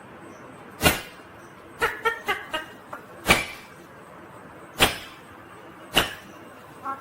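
Four sharp knocks or clicks spread over a few seconds, with a quick run of short, pitched chirps from a ringneck parakeet about two seconds in.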